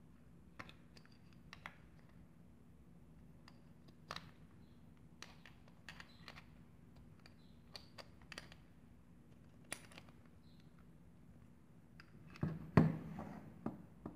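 Light clicks and taps of the metal bevel gears and red plastic housing of an opened right-angle drill adapter being handled. Near the end there is a louder clatter as the adapter is set down on a table.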